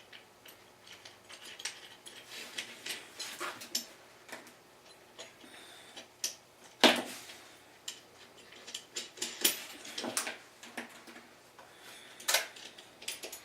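Small metal clicks and clinks, irregular, from nuts being set onto rear-sprocket bolts with needle-nose pliers; one sharper clink about seven seconds in.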